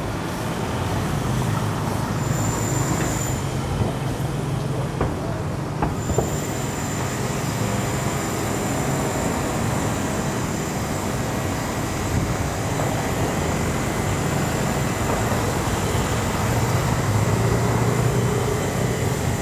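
Street traffic: a steady low rumble of vehicle engines that swells near the end, with a thin, high, steady whine that comes in briefly about two seconds in and returns about six seconds in for the rest.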